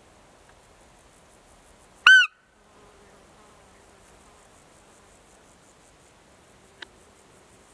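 A single short, loud, high-pitched squeak about two seconds in, rising then falling in pitch: a roe deer fiep call, close to the microphone. Insects chirp faintly throughout, and there is a small click near the end.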